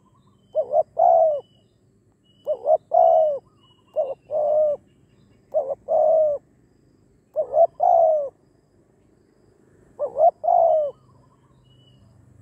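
Spotted dove cooing: six phrases a second or two apart, each mostly two short quick notes followed by a longer, drawn-out coo. Faint high chirps sound in the background.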